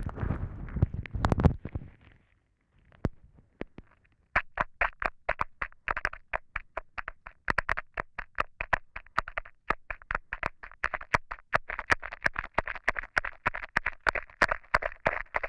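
Close-up mouth sounds on a lavalier microphone: a rough rushing noise in the first second and a half, then, after a short pause, a steady run of sharp wet saliva clicks, about four a second.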